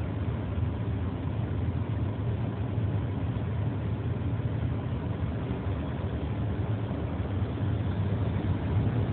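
Steady low engine hum and road noise inside a transport truck's cab, picked up by a phone in a dashboard holder as the truck creeps along in traffic; it grows a little louder near the end.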